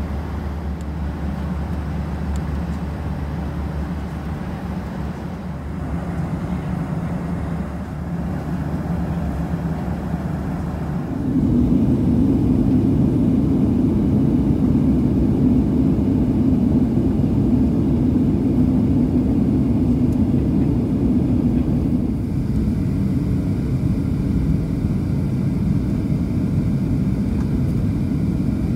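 Steady in-flight cabin noise of a Boeing 737-700: a rush of air with the drone of its CFM56 jet engines. About 11 seconds in it cuts to a louder, deeper drone, heard at the window beside the engine during the descent.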